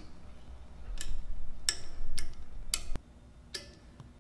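Sharp clicks, four of them a second or less apart, as the on-off switches of a screen-printing press's laser alignment units are flicked on. A low rumble runs underneath and stops about three seconds in.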